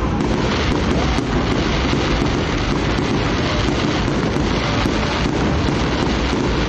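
Wind buffeting the microphone: a steady, loud rushing rumble, heaviest in the low range, with a few faint ticks over it.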